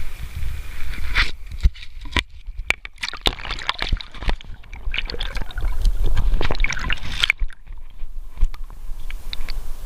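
Water sloshing and splashing with a dense run of crackling clicks over a low rumble; the crackling stops about seven seconds in, leaving a few faint clicks.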